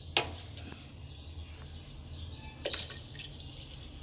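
Milk being poured from a glass into a stainless-steel mixer jar, with a few sharp clinks, the loudest about two-thirds of the way in, over a low steady hum.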